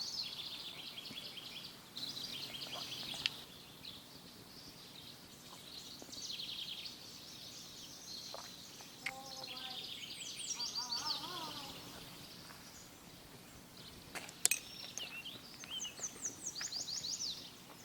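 A songbird singing: repeated quick phrases of high, rapid, downward-sweeping notes, a phrase every few seconds, with a couple of sharp clicks about three seconds in and near fourteen seconds.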